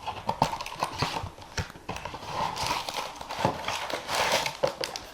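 Cardboard blaster box being opened and the card packs inside pulled out and handled: irregular rustling and crinkling with light knocks and taps.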